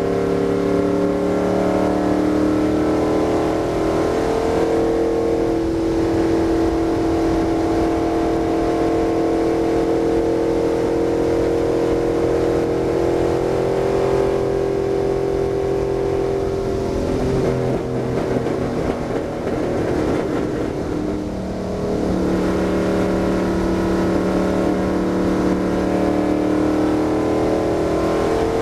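Stock car's V8 engine running hard at speed, heard from inside the cockpit, a steady, sustained note. About two-thirds of the way through the note breaks up and dips slightly for a few seconds, then settles back to the same steady pitch.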